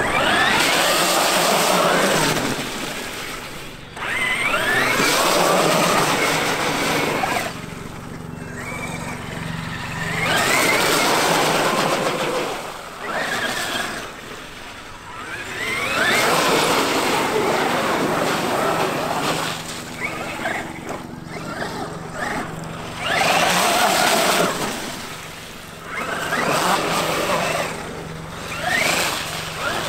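Traxxas X-Maxx brushless electric RC monster truck driving through wet mud and puddles, throttling up in repeated bursts a few seconds apart. Its motor whines upward in pitch with each burst, and the tyres churn through mud and water.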